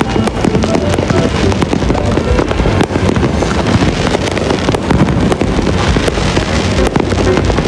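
Fireworks going off in rapid succession: a dense, continuous run of bangs and crackles.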